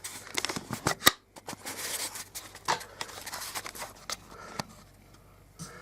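Handling noise as the freshly sanded wooden cup is shown up close: rustling and scraping with a string of sharp clicks, the loudest about a second in, dying away after about four and a half seconds.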